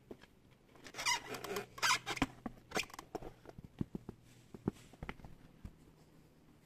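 Zontes G1 motorcycle seat being unlatched and lifted off: a second or so of plastic scraping and rustling, then scattered clicks and light knocks as it comes free.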